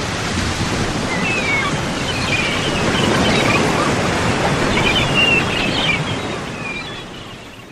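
Surf washing up on a sandy beach, a steady rush of breaking waves, with birds calling now and then over it; it fades out near the end.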